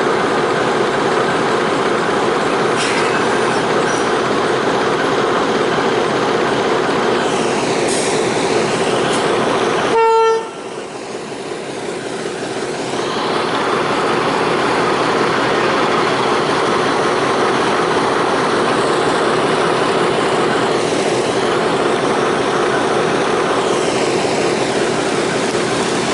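Diesel locomotive running with a steady engine drone as the train moves, with one short toot of its horn about ten seconds in.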